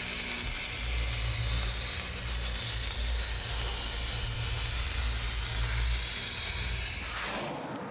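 Plasma cutting arc: a steady, loud hiss with a low rumble underneath, fading away in the last second.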